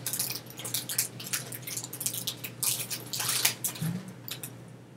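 A chips bag being handled and crinkled: an irregular run of crackling rustles that thins out near the end.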